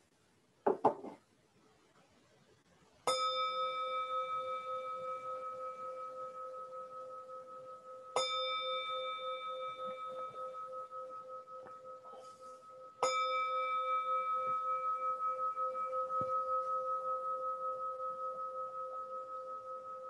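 Singing bowl struck three times, about five seconds apart, each stroke ringing on with a pulsing tone that slowly fades, marking the start of a guided meditation. A brief knock of handling comes about a second in, before the first stroke.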